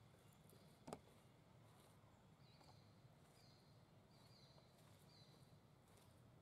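Near silence: faint outdoor background with one soft click about a second in, then four short high chirps, roughly one a second.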